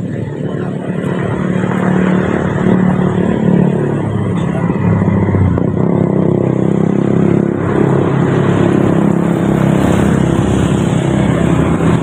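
Diesel engine of a heavy box truck approaching and passing close by, a loud low hum that builds over the first couple of seconds, with motorcycles passing behind it.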